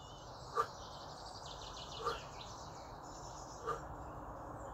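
Small birds chirping and twittering steadily, with a short sharp sound about every one and a half seconds.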